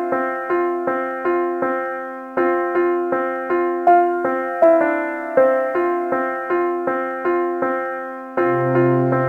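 Keyboard music with a piano tone: a steady run of single notes struck at an even pace, each fading before the next. A lower bass note comes in near the end.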